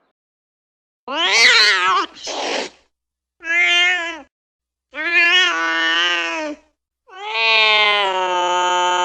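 A cat meowing four times, each meow longer than the last. The last is a long, drawn-out, wailing meow.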